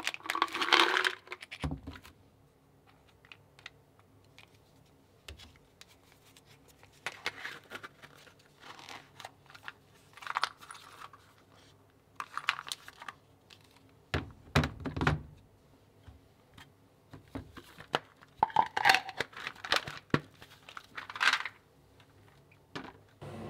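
Small hard tablets rattling as they are poured from a plastic bottle into a small plastic holder. This is followed by scattered plastic clicks, knocks and rustles as the holder is closed and handled, with a low knock about two-thirds of the way through.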